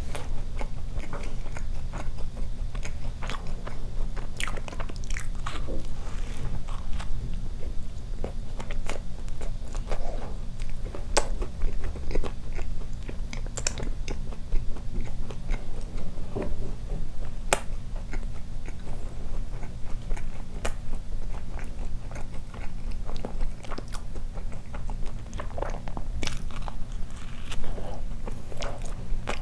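Close-miked biting and chewing of a soft glazed Krispy Kreme doughnut, with irregular wet mouth clicks and smacks, over a steady low hum.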